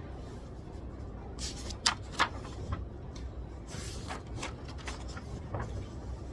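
Steady library room ambience with a low hum. Over it come a handful of small clicks and knocks from desk handling, the two sharpest close together about two seconds in.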